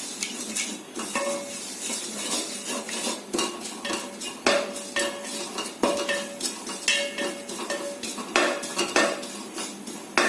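A spoon stirring and scraping neem flowers and crushed dry ginger as they dry-roast in an empty pan without oil, with irregular clinks and scrapes against the pan.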